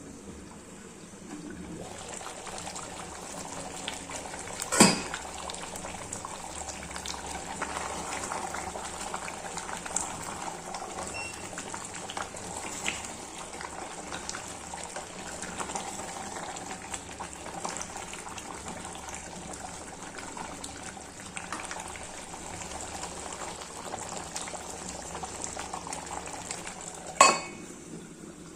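Curry cooking in a pot over high heat, a steady bubbling hiss, with two sharp clinks of a utensil against the pot, about five seconds in and again near the end.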